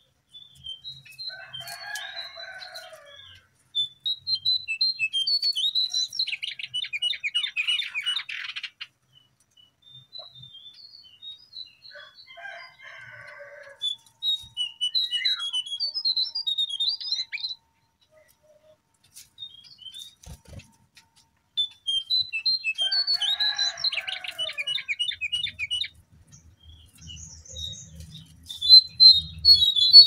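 Lesser shortwing (cingcoang coklat) song: bursts of high, quick chirping phrases and fast trills. The same sequence of phrases comes round again about every eleven seconds.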